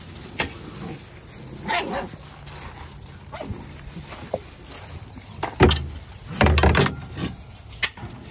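Labradoodle puppies giving a few short yips and barks, mixed with sharp clicks, and with louder bumps and scuffling in the second half.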